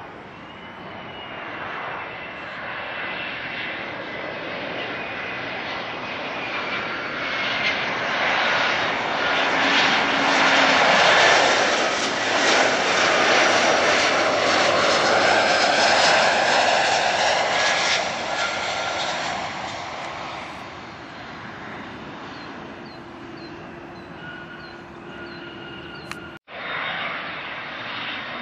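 Air Canada Embraer 175 twin-turbofan jetliner on landing approach passing overhead. Its engine roar and high whine build to a peak midway, then fade. Near the end it cuts abruptly to another jetliner's engine noise.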